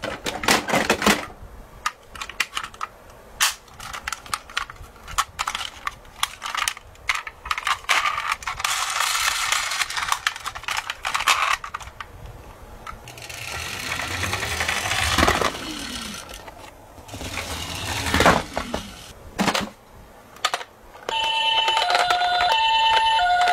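Plastic toy cars clattering, knocking together and scraping against the cardboard as a hand rummages through a box of toy ambulances and police vans. Near the end a toy ambulance's electronic siren switches on, beeping back and forth between a higher and a lower pitch.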